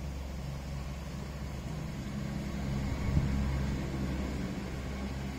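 Steady low hum of a running motor, growing somewhat louder about two to four seconds in, with a brief peak near the middle.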